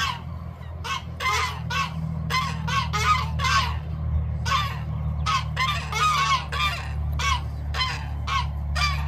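Farm poultry calling: short, rapid, honking calls repeated several times a second, over a steady low hum.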